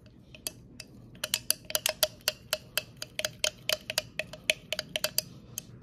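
A metal stirrer clinking rapidly against the side of a small glass beaker while iron oxide powder is mixed into oil. The quick glassy taps start about a second in and come about five a second.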